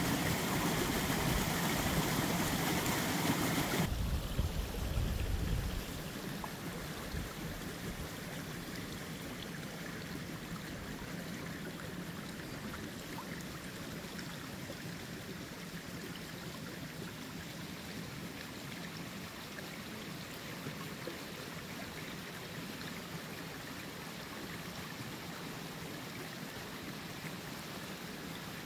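Shallow spring water flowing in a thin sheet over the forest floor and a wet meadow, a steady rushing and rippling. It is louder for the first few seconds, then softer and even, with a brief low rumble about four seconds in.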